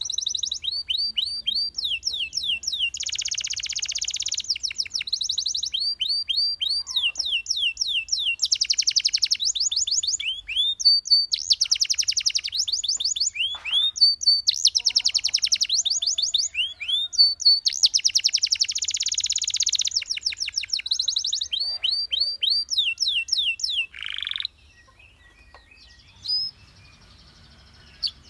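Domestic canary singing a long, fast song of rolling trills and rapid runs of repeated downward-sweeping notes. The song stops about 24 seconds in, and one short chirp follows a couple of seconds later.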